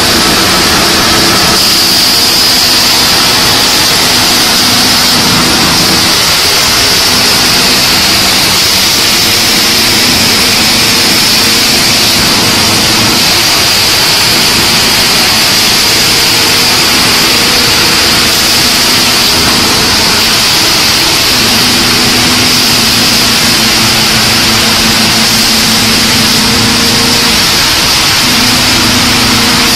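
Particle board production-line machinery running: loud, steady mechanical noise from motors and roller conveyors, with a high steady hiss and a low hum that shifts in note several times.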